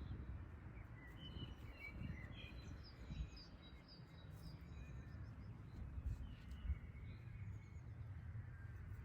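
Outdoor ambience of small birds chirping, with short calls scattered throughout over a steady low rumble.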